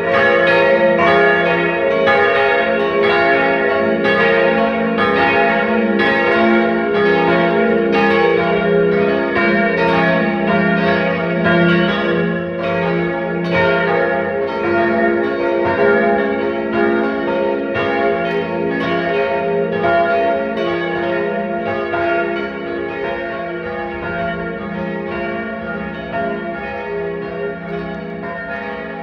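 Church bells pealing, strokes overlapping in a dense, continuous ringing; the peal grows gradually quieter over the last several seconds.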